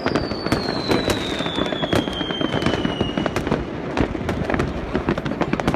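Fireworks going off in many places at once: a dense, continuous crackle of bangs and firecrackers, with one long whistle falling in pitch over the first three seconds.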